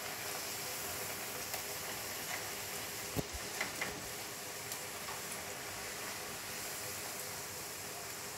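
Hot oil sizzling steadily as masala puris deep-fry in a pan, with a few light knocks of a silicone spatula against the pan a little past the middle.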